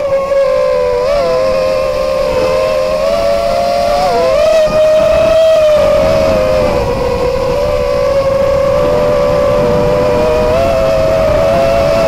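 Quadcopter's four RMRC Blue Series 2600 kV brushless motors and propellers whining steadily in flight, picked up by the onboard camera, over a low rushing noise. The pitch wavers briefly about one second in and again about four seconds in.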